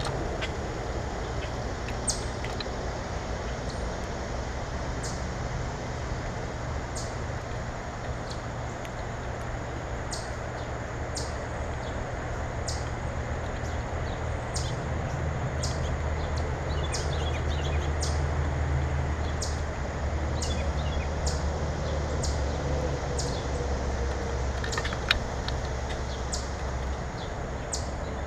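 Small birds chirping, short high chirps about once a second with a few quick trills, over a steady low mechanical hum.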